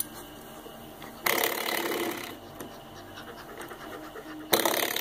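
Coil-spring door stop flicked by hand, vibrating with a buzzing twang twice: about a second in for about a second, and again near the end.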